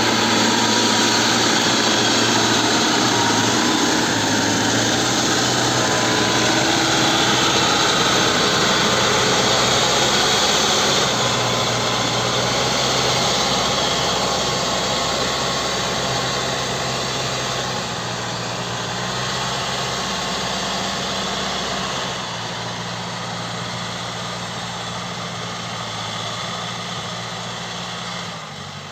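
CAT 434E backhoe loader's diesel engine running, its speed shifting up and down in steps, growing quieter over the last third.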